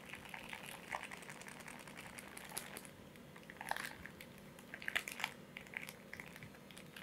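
Faint, intermittent crinkling of a plastic spice packet as it is squeezed and tipped to pour powder.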